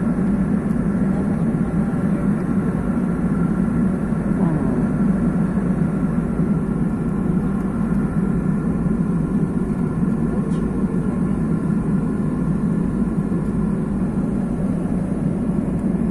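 Steady in-flight cabin noise of an Airbus airliner: a constant low roar of jet engines and airflow, with a few faint steady tones above it.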